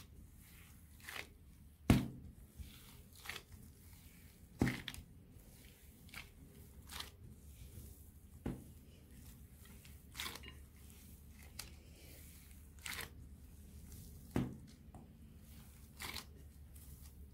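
Cookie dough with raisins and walnuts being kneaded by a hand in a disposable plastic glove in a glass bowl: soft squishing and rustling of the glove and dough, with four dull knocks, the loudest about two seconds in.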